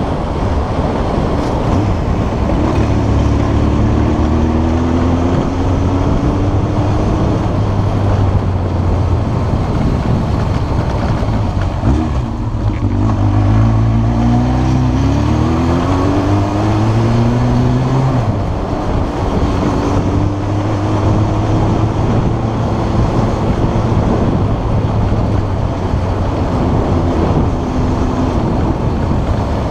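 1993 Yamaha XJ600 S Diversion's air-cooled inline-four engine running loud, its pitch climbing slowly under acceleration and dropping back between the climbs.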